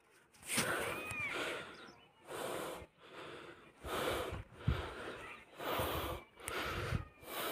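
Footsteps in loose, dry sand: a soft crunching swish about every 0.8 seconds at walking pace.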